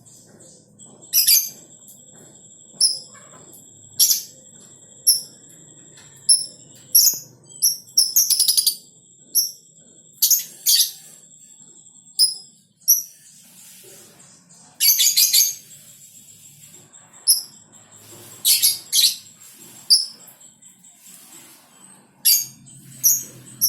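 Lovebird giving short, sharp, high-pitched chirps, repeated irregularly about once a second, with a few quick rapid bursts of chirps along the way.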